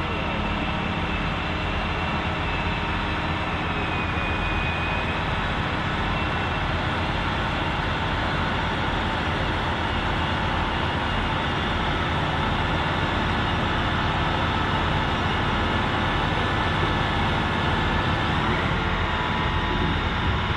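Pulling tractor's engine running hard and steady at high revs, slowly growing louder.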